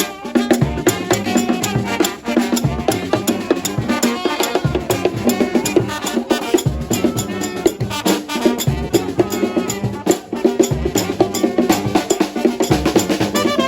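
Lively music with a fast, steady drum and percussion beat.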